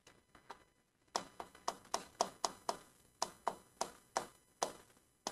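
Stylus tapping and clicking against the glass of an interactive touchscreen board while handwriting a word: a dozen or so sharp taps, about three a second, starting about a second in.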